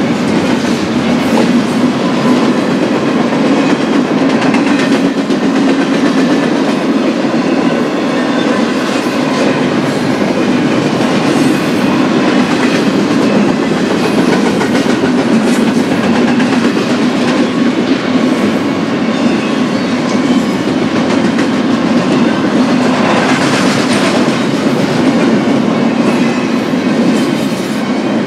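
BNSF Z-train intermodal freight cars rolling past at close range, a steady rumble with wheels clicking over the rail joints. A brief brighter stretch of higher-pitched wheel noise comes about 23 seconds in.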